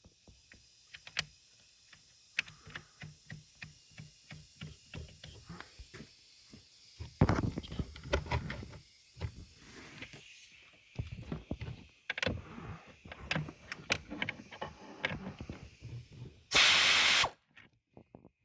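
Hand ratchet clicking and knocking as nuts are run down and tightened on a car's knee airbag bracket. The clicks come in quick runs, with louder metal knocks in the middle, and a short loud hiss near the end.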